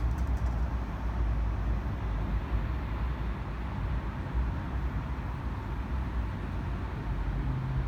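Steady low rumble with an even hiss of background noise.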